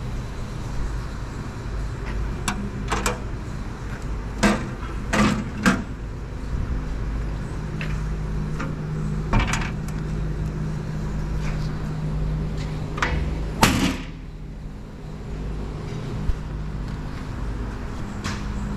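A steady low hum with a dozen or so scattered metal knocks and clunks on a metal-cutting band saw's sheet-metal guards and frame, clustered in the first six seconds and again at about nine and a half seconds. The loudest clunk comes just under fourteen seconds in.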